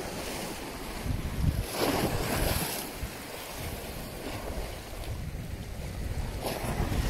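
Wind buffeting the microphone over choppy sea water, a steady rushing rumble with louder surges about two seconds in and again near the end.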